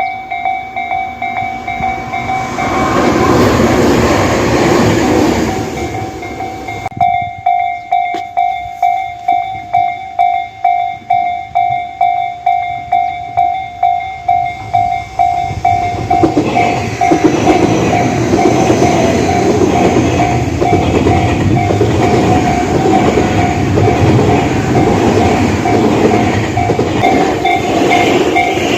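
Japanese level-crossing warning bell ringing its repeated electronic clang, about two strokes a second. A train runs over the crossing in the second half with a steady rumble and rattle, and a shorter rush of noise comes about two to six seconds in.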